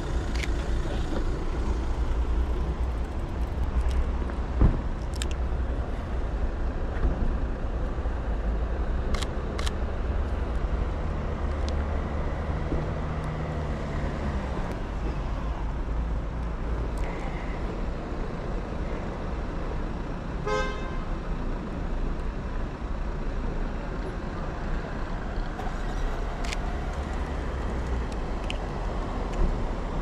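City street traffic noise with a steady low rumble, a thump a few seconds in, a few sharp clicks, and a short horn toot about twenty seconds in.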